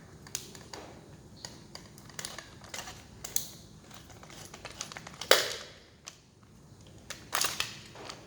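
Clicks, rattles and knocks of a small cordless drill's plastic housing and parts being handled, with one sharp, louder knock a little past the middle and a brief clatter near the end.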